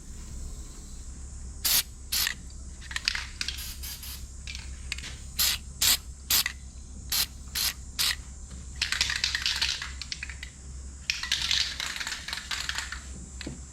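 Aerosol can of crack-detection developer spraying in many short spurts and two longer sprays of a second or two. The can is the kind whose nozzle always clogs up.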